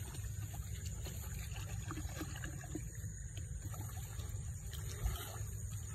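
Steady wind noise on the microphone over footsteps swishing through wet paddy grass and hands splashing in shallow muddy water, with one sharp thump about five seconds in.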